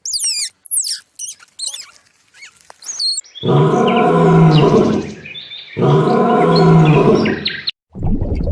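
An animal's voice: quick high chirping calls that sweep up and down, then two long, low calls, each lasting about two seconds.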